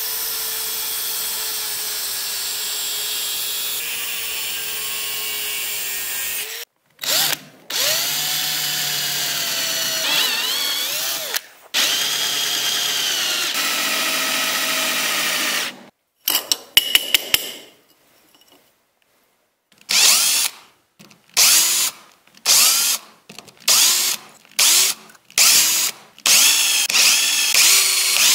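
An angle grinder cutting thin metal sheet runs steadily for about six seconds and then stops. An electric hand drill then bores through the sheet in two long runs, its pitch sagging under load. After a short pause comes a string of about nine brief drill bursts as a countersink bit chamfers the drilled holes.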